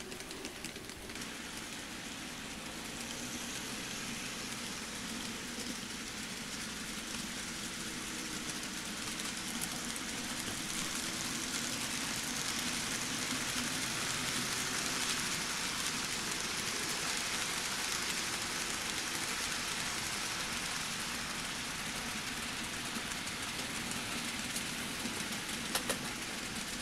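Model trains running on a layout's track: a steady rushing hiss of small wheels on the rails with a faint motor hum. It grows louder through the middle as trains pass close by, and a couple of sharp clicks come near the end.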